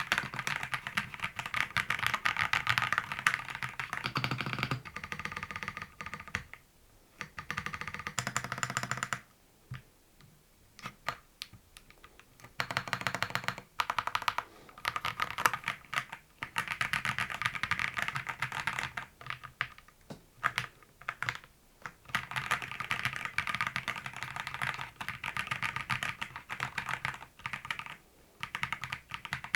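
Fast typing on a mechanical keyboard: dense runs of key clacks, broken now and then by short pauses.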